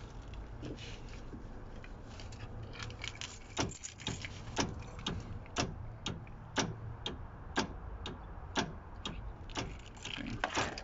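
Car door-lock relay clicking over and over by itself, about two clicks a second, every other one louder, growing louder about three seconds in. It chatters as soon as it is powered, with the lock switch untouched, so it is misbehaving.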